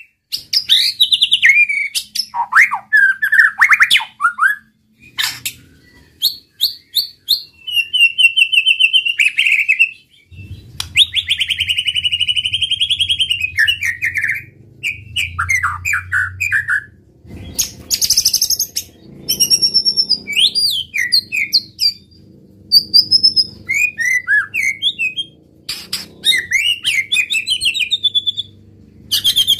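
White-rumped shama singing a long, varied song: loud whistles that glide up and down, fast trills and quick runs of repeated notes, broken by short pauses between phrases.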